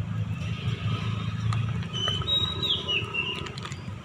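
Outdoor street-market background: a steady low rumble with a few light clicks. About two seconds in, a short high squeaky chirp steps down in pitch.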